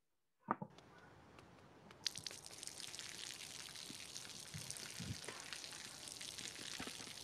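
Faint water from overhead dripping and splashing onto pavement, heard as an even hissing patter with scattered ticks. It grows louder about two seconds in, after a single click about half a second in.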